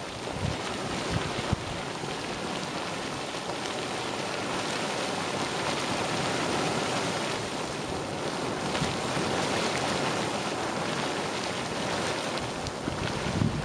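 Geyser vent boiling up through a hot pool, a steady churning rush of water bubbling and splashing at the surface.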